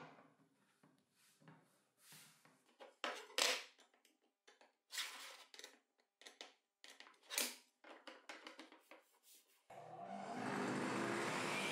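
Quiet handling sounds of a melamine-faced MDF zero-clearance insert being set into a table saw's throat and levelled: scattered small taps, knocks and scrapes as it is seated and its leveling screws are turned with a screwdriver. Near the end a steady machine noise starts, building over about a second and holding.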